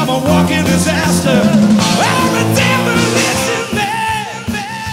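Rock band playing live, with electric guitar, bass, drums and sung vocals. The music thins out and the level drops near the end, leaving a held note.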